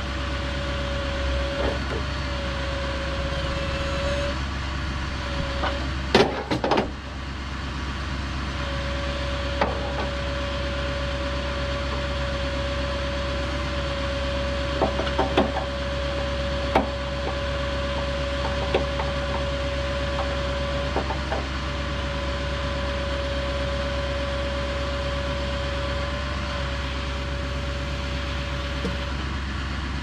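Woodland Mills HM130 portable band sawmill running steadily, with a steady whine that breaks off a few times. Scattered sharp wooden knocks sound over it, the loudest a cluster about six seconds in.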